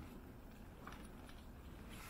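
Cats eating from a plate, faint, with a few soft chewing clicks about a second in.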